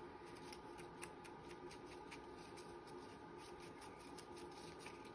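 Faint, scattered snips of scissors cutting paper.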